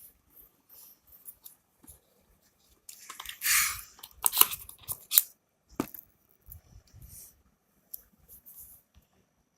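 Phone box accessories being unpacked by hand: a loud rustle of packaging about three seconds in, followed by a few sharp clicks and smaller handling noises.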